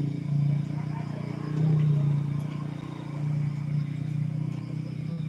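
An engine running with a steady low drone that swells and eases in loudness every second or two.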